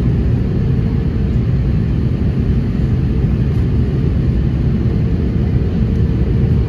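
Cabin noise inside an Airbus A330-200 on approach: the steady rumble of the jet engines and airflow heard from a window seat beside the engine, mostly low-pitched with a faint steady hum above it.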